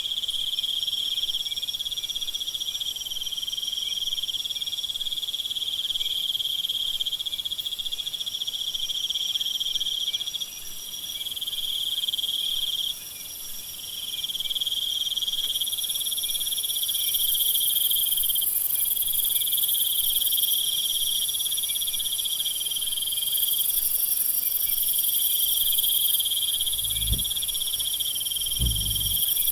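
Night jungle chorus of crickets and other insects: several steady high-pitched trills layered together, some dropping out and coming back every few seconds. Two short low thuds sound near the end.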